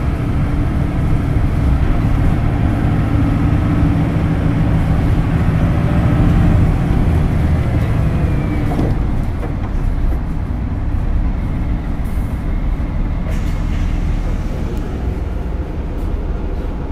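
Hino Blue Ribbon City Hybrid (HU8JLFP) diesel-electric city bus under way, heard from inside: a heavy engine and road rumble, pulling hard and growing louder with a faint rising whine, then easing off about nine seconds in and running quieter.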